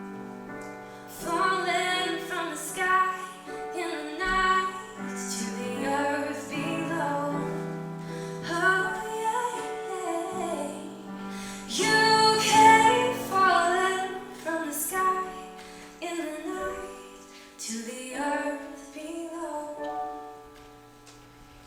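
A woman singing a slow song live over sustained piano chords, getting quieter toward the end as the song closes.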